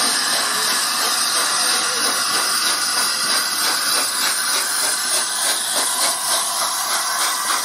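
LNER A3 Pacific steam locomotive 60103 Flying Scotsman passing close by with a steady hiss of steam.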